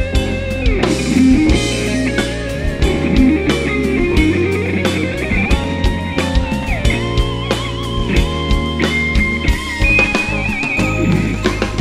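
Live rock band in an instrumental break: an electric guitar plays a lead solo of sustained, bent notes with vibrato over bass guitar and a steady drum-kit beat.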